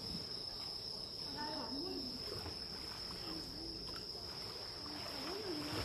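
Insects trilling in one steady, unbroken high-pitched note, with faint voices of people talking in the background.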